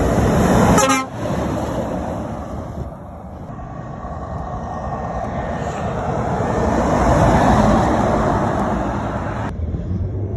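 Articulated lorries driving past, diesel engine and tyre noise swelling as one comes by close about seven to eight seconds in. A short horn toot sounds about a second in.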